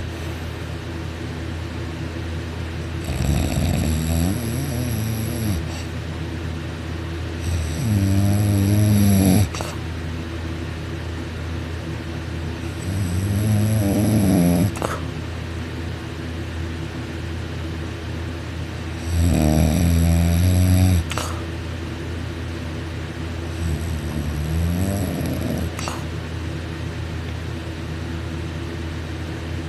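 Loud open-mouthed snoring from a person sleeping on their back, the soft palate vibrating: five long snores about five seconds apart, each wavering in pitch, over a steady low hum.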